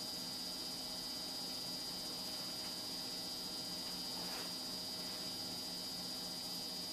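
Steady electrical hum and hiss with a thin, high steady tone over it.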